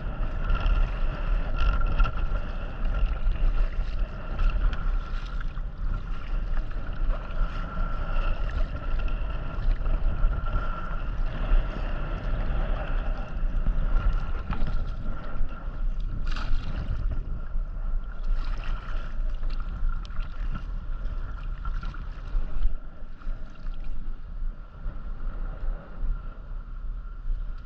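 Wind buffeting the microphone on a kayak, a heavy rumble over water noise, with a steady thin high whine throughout.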